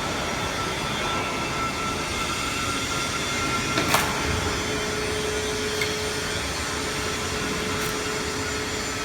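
FR 808 rewinder running: a steady mechanical noise with a faint high whine, a sharp click about four seconds in, and a lower steady hum tone from then on.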